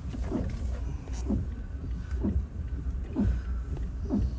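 Car windshield wipers sweeping about once a second, each stroke a short squeak falling in pitch, over the steady low rumble of the car's engine and cabin.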